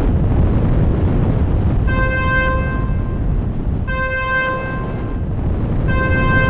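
A train horn sounding three short toots about two seconds apart over the steady low rumble of the approaching train.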